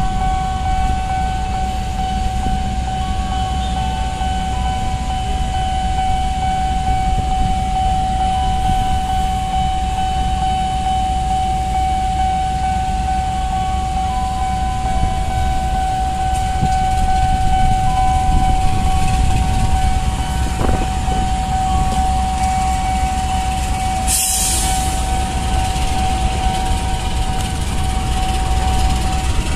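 Diesel-electric locomotive engine rumbling steadily as it hauls a passenger train slowly past, with a steady high tone held throughout. About three-quarters of the way through comes a short, sharp hiss of air.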